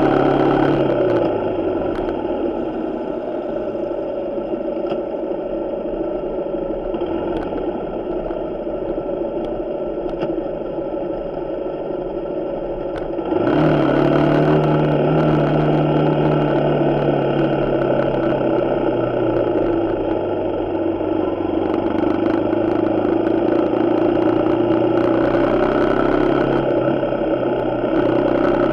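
Suzuki Gixxer 150's single-cylinder engine running under way, picked up by a camera mounted on the bike. Its note drops about a second in and stays low, then jumps up sharply and louder about halfway through as it accelerates, dips again a little later and climbs near the end.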